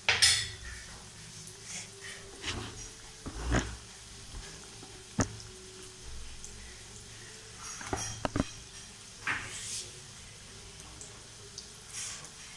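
Gulab jamun deep-frying in oil in an aluminium kadai: a low steady sizzle broken by scattered sharp clicks and knocks, about ten in all, the loudest right at the start.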